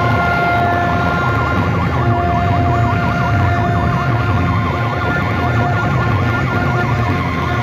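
DJ sound systems with banks of horn loudspeakers playing at high volume: steady electronic horn tones over heavy bass, with a fast warbling siren effect that starts about a second and a half in and stops near the end.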